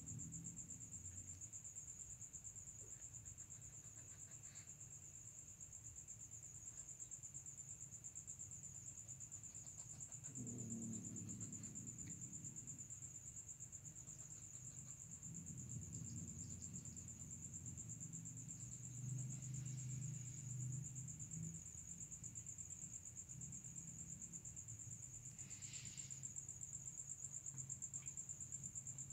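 Crickets chirring in one continuous high trill, over a faint low hum that swells a couple of times.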